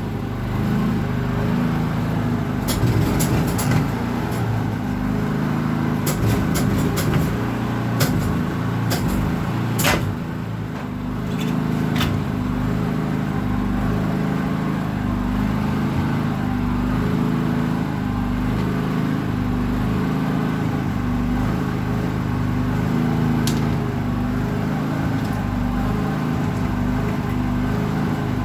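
A running engine's steady low drone, with scattered sharp clicks and knocks of a tire being mounted onto a wheel rim, mostly in the first twelve seconds and once more near the end.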